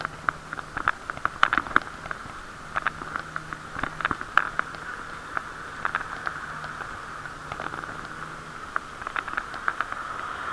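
Muffled riding noise heard through a waterproof camera case on a moving bicycle: a steady hiss with many irregular clicks and taps.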